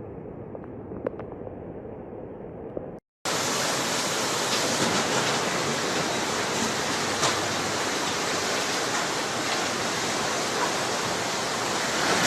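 Rushing floodwater: a duller rush with a few clicks, then after a brief break about three seconds in, a louder, steady rush of fast-flowing water.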